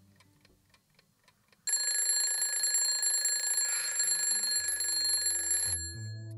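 Faint clock ticking, then a twin-bell alarm clock goes off: a loud, steady metallic ringing for about four seconds that cuts off suddenly near the end, as the alarm is switched off.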